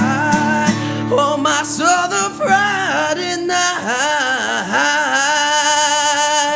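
A live country band with guitar, and a singer holding drawn-out notes with heavy vibrato, ending on one long sustained note as the song closes.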